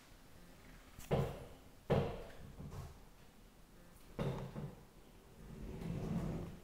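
A closet door being handled: three short knocks and bumps, about a second apart at first, then a softer rustling scrape near the end.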